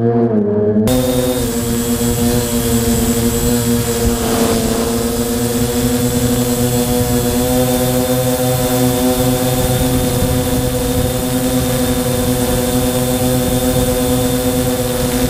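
Quadcopter's four Multistar 2213-980 brushless motors spinning 9047 Gemfan props in flight: a steady buzzing hum with rushing wind, heard from on board. The pitch stays nearly level, with a slight rise about four seconds in.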